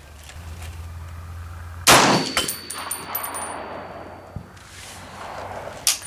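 A single shot from an M1A rifle firing a .308 handload about two seconds in, its report trailing off over a second or so, followed by a thin high ringing. A smaller sharp click comes near the end.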